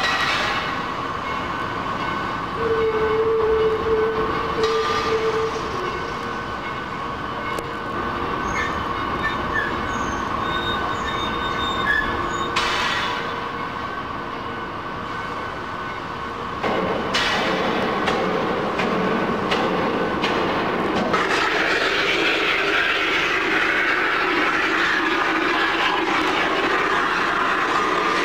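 Steel-mill machinery running with a steady high whine and squealing metal. The noise grows louder about two-thirds of the way through and turns into a loud rushing hiss in the last seven seconds.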